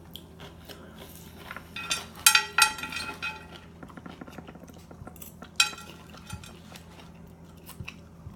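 Eating utensil clinking against a dish, with a cluster of ringing clinks about two seconds in and another a little past halfway, and smaller ticks between.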